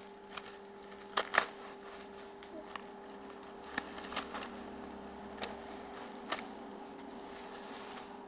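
Plastic cling wrap crinkling as it is pulled and peeled off the hair, in a string of sharp crackles, the loudest two about a second in, over a steady low hum.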